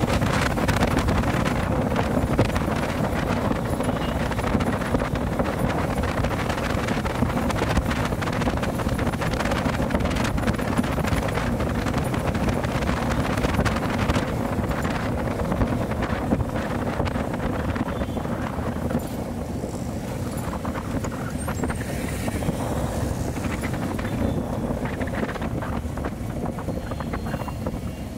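Bajaj CT100's small single-cylinder four-stroke engine running steadily while riding, with wind buffeting the microphone. It gets a little quieter in the second half.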